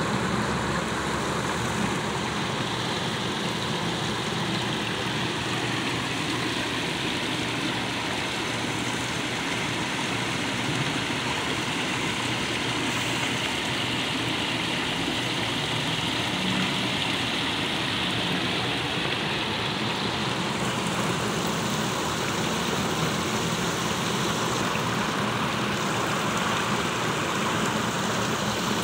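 Steady rush and splash of a fountain's falling water, with a low steady rumble beneath it.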